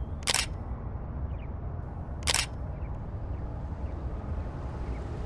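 Two short, sharp clicks about two seconds apart, over a steady low rumble.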